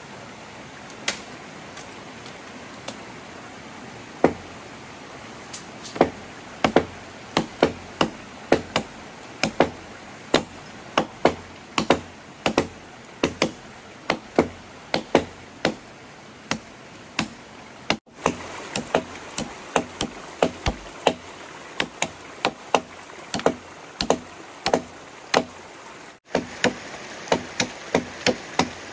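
Repeated sharp chopping or knocking strikes of a tool on wood or bamboo, about one to two a second, over a steady background hiss.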